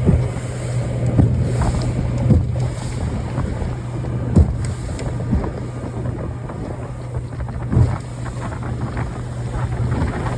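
Motorboat engine running steadily under way, with wind buffeting the microphone and occasional thumps, about five, as the hull hits small waves.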